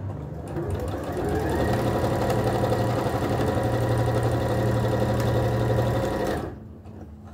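Electric sewing machine stitching a seam: it speeds up, runs at a steady speed for several seconds, then stops near the end.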